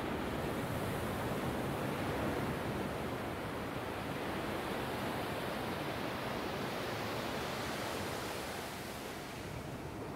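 Small waves breaking and washing up a sandy beach: a steady rush of surf that swells about a second in and eases off near the end.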